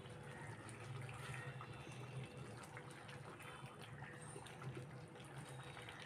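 Chicken curry bubbling as it simmers in a steel pot, with a spatula stirring through it and small clicks against the pot. A low steady hum runs underneath.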